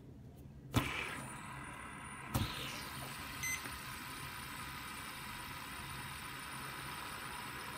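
Brass 2R Designs Boomerang Mini Pro fidget spinner with a hybrid ceramic R188 bearing flicked into spin with a sharp click about a second in and flicked again about two and a half seconds in, then whirring steadily and quietly as it spins down.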